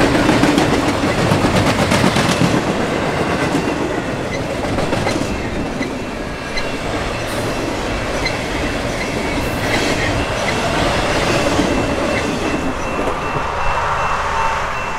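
BNSF freight train's cars rolling past, a steady clickety-clack of wheels over the rail, with a thin steady high ringing above it.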